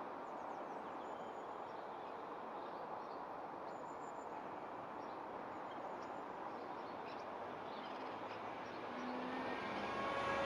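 Steady outdoor background noise with faint, scattered bird chirps. A faint hum with a few steady tones comes in near the end.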